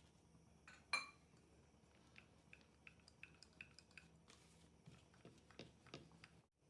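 Kitchen utensils and dishes: one sharp metallic clink about a second in, ringing briefly, then a run of light taps and clicks.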